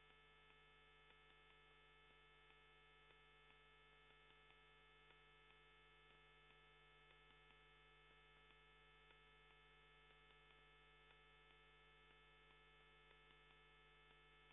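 Near silence: a faint, steady electrical hum made of many fixed tones, with faint ticks about once a second.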